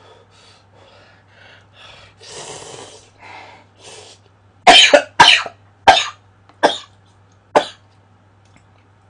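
A person slurping cup ramen noodles off chopsticks. Soft slurps come first, then five loud, short slurps about a second apart that grow fainter.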